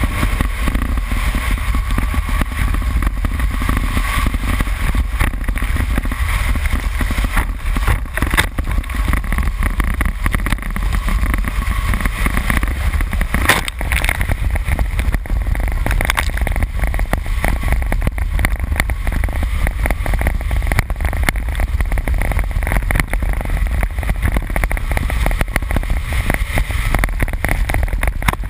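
A 2001 Subaru Impreza 2.5RS's flat-four engine running hard as the car is driven fast over a dirt rallycross course, heard through heavy wind buffeting on an outside-mounted camera. Dirt and mud pelt the car and camera throughout, loudest in a burst about halfway through.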